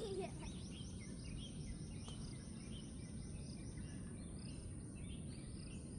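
Outdoor ambience: insects trilling on one steady high note, with birds chirping in quick repeated runs, over a low steady rumble.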